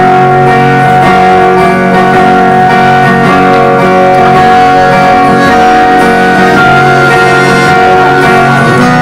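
Live band playing without singing: acoustic guitar strummed over steady held chords.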